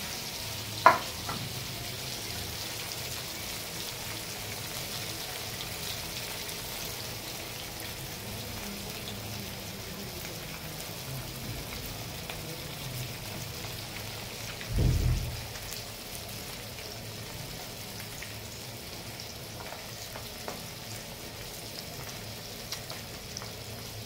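Fish pieces deep-frying in hot mustard oil in a kadhai, a steady sizzle throughout. A sharp click sounds about a second in, and a short dull thump comes about midway.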